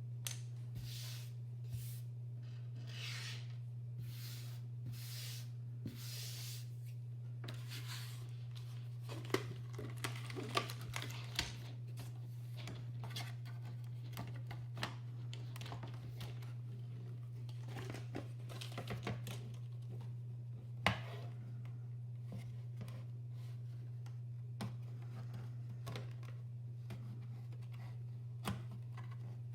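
Plastic parts of a mechanical keyboard being handled and worked apart: about six scraping, rubbing strokes in the first seven seconds, then scattered clicks and light knocks, over a steady low hum.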